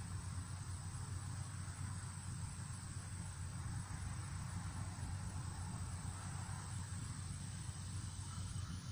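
Summer outdoor ambience: insects droning steadily at a high pitch over a constant low rumble.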